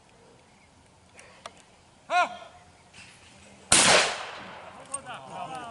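A single loud shot from a semi-automatic shotgun fired at a clay target, about three and a half seconds in, with a long echoing tail. A short shouted call comes about a second and a half before the shot.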